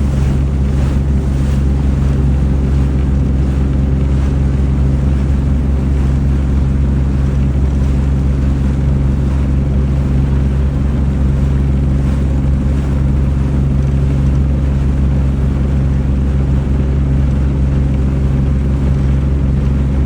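A boat's engine running at a steady speed, a constant low drone, with wind and water noise over it.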